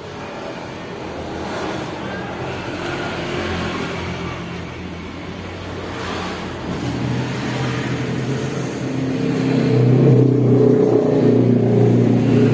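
Suzuki GT750 two-stroke triple engine running and being revved, getting louder in the second half as the revs build.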